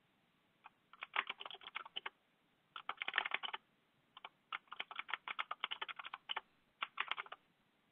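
Typing on a computer keyboard: rapid keystrokes in several quick bursts with short pauses between them.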